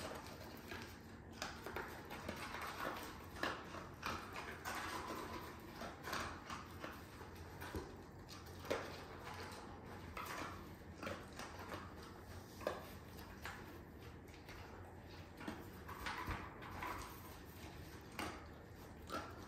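A dog nosing through a cardboard box for scattered kibble: irregular rustling and scraping of cardboard, with scattered clicks and crunches as it picks up and eats the food.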